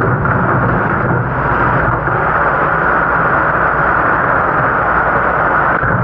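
Steady rush of water spray in a commercial dish pit, with pressurised rinse water hitting a metal sheet pan and the steel sink, over the low running hum of the dish machine.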